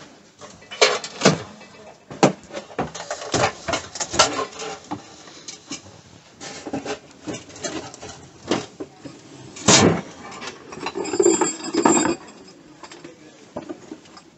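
Irregular clicks, knocks and light clatter of small objects being picked up and set down on sale tables, with one louder knock about ten seconds in.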